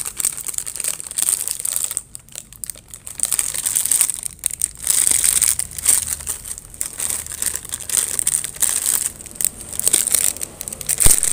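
Metallised plastic biscuit bag crinkling and rustling loudly as hands pull and twist its sealed top to tear it open, in spells with short pauses; the seal is hard to open. A sharp snap near the end is the loudest sound.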